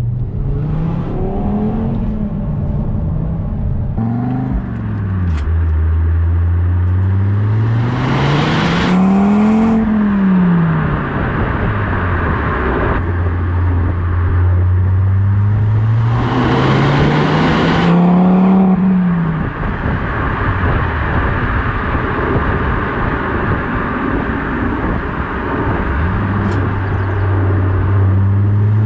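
Engine of an ECU-remapped car pulling at full throttle in third gear, its revs climbing and dropping back several times. Two loud hissing surges come at the revving peaks, about nine and seventeen seconds in; the owner suspects a noise that appeared after the remap.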